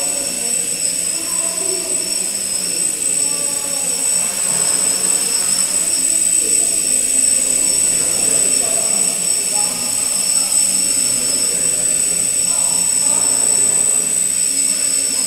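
Small quadcopter's motors and propellers running steadily in flight, a constant buzz with a high, steady whine on top.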